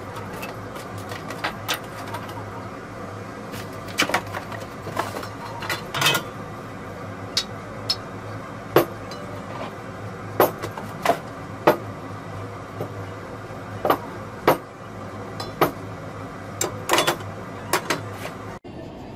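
Irregular clicks, clinks and knocks of brazing-torch kit parts being handled and set down on a wooden bench: brass torch fittings, metal gas cylinders and a hard plastic cylinder holder, over a steady low hum. The sound cuts off suddenly near the end.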